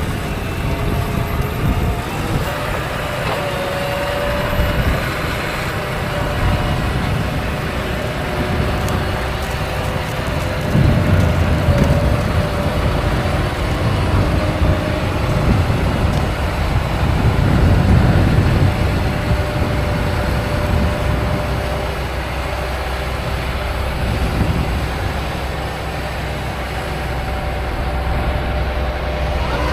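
Heavy farm machinery running steadily: diesel tractor and harvester engines at work during corn silage harvest. A low rumble swells about a third of the way in and again a little past halfway.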